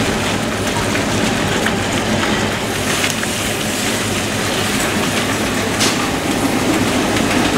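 Steady, loud kitchen noise while spinach is stirred with a spatula in a steel saucepan on an induction hob, with a couple of brief clicks.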